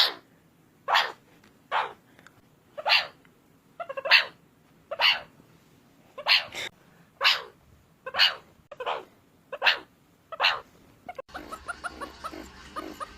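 Meerkat giving short, sharp barking calls about once a second, a dozen in a row. Near the end they give way to a busier run of many quick, softer chirps.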